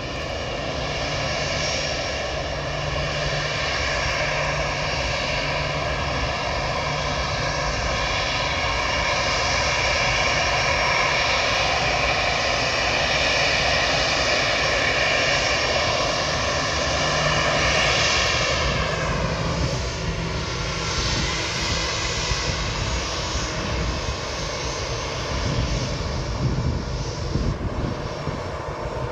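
Twin jet engines of an easyJet Airbus A320-family airliner running on the runway: a steady whine over a rumble. About two-thirds of the way through, the whine falls in pitch as the engines wind down.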